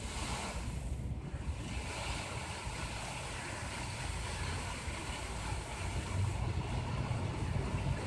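Water fountain jets spraying and splashing, a steady rushing hiss that grows a little louder near the end, with wind rumbling on the microphone.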